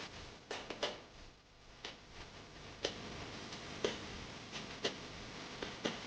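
Sharp ticks about once a second over a steady hiss.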